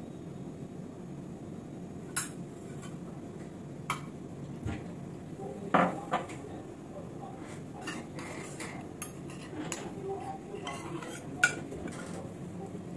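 Metal ladle clinking against metal vessels while saffron milk is spooned over biryani rice in an aluminium pot: scattered light clinks, the loudest about six seconds in, over a steady low hum.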